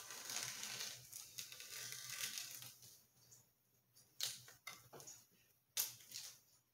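Masking tape being peeled off a rocket body tube beside a tacky epoxy fin fillet: a steady tearing for the first couple of seconds, then a few faint scrapes and two sharp clicks near the end.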